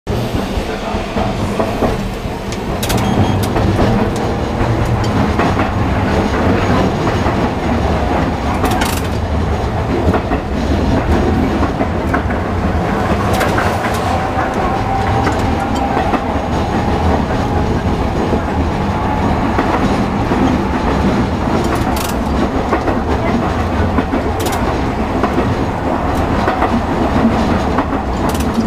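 Tosaden streetcar running along street track, heard from inside the car: a steady rumble of wheels and motor, with sharp clicks from the rail joints every few seconds and a faint whine in the middle.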